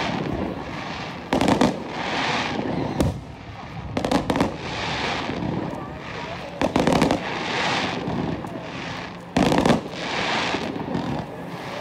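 Aerial fireworks shells bursting overhead: about five sharp bangs roughly two seconds apart, each trailed by a fading hiss.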